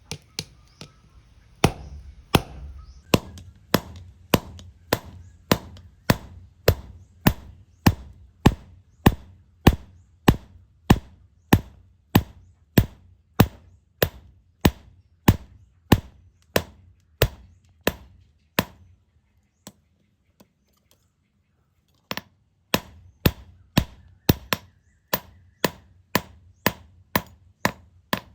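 Hand hammer striking steel on an anvil in steady, evenly spaced blows, about two to three a second, each with a short metallic ring. The blows stop for about three seconds past the middle, then resume at the same pace.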